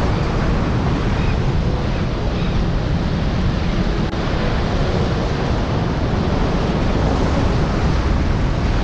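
Steady wind buffeting the microphone, with a low rumble, over small sea waves washing and breaking against the rocks of a jetty.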